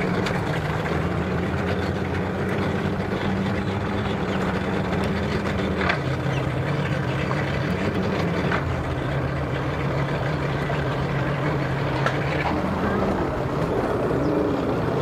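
Bass boat outboard motor running at low speed, its pitch shifting a few times as the throttle is worked to drive the boat onto its trailer at the ramp.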